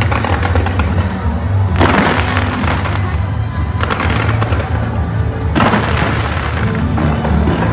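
Fireworks bursting off a skyscraper in crackling volleys, about every two seconds, over music with a heavy, steady bass.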